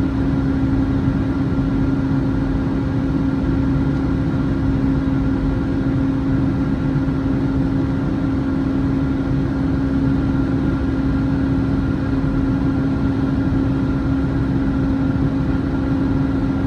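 Boeing 757-300's jet engines running at a steady high power, a constant drone with a steady hum over a low rumble.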